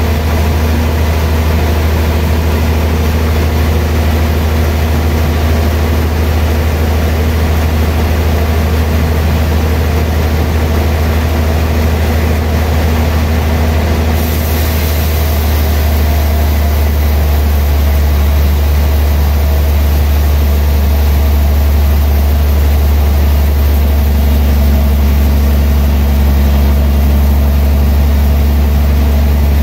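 Large vertical band sawmill running with a loud, steady low hum as the band saw rips a big log lengthwise into a slab. The higher hiss changes about halfway through.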